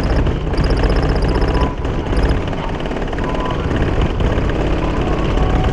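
Heavy bass music from four 15-inch Skar EVL subwoofers in a truck, heard from outside against the door, with the body and roof panels rattling and buzzing under the low notes.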